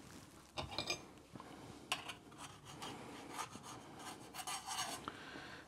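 Faint scraping and rubbing with a few light clicks as a metal plantain press (pataconera) is handled on a plastic cutting board.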